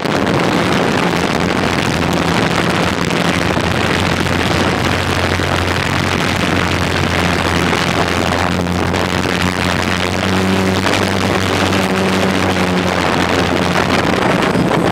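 DJI Phantom quadcopter's four electric motors and propellers buzzing steadily, heard from the drone's own camera, as it comes down to land. The pitch of the motor hum shifts a little in the second half.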